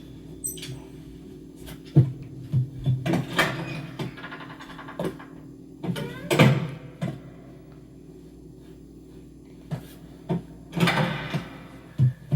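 Animated-film sound effects: scattered knocks, clicks and clatters over a steady low hum, with a few longer noisy swells about 3, 6.5 and 11 seconds in.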